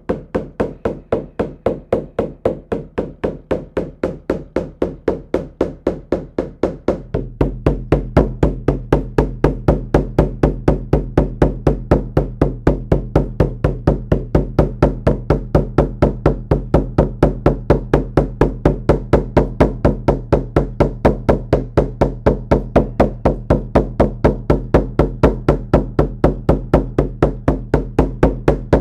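Shamanic frame drum beaten in a fast, steady, even rhythm for a drum journey. It becomes louder and deeper about seven seconds in.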